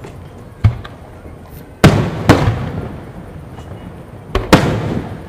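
Aerial fireworks shells bursting: about five sharp booms, mostly in quick pairs, each dying away in a long rolling echo.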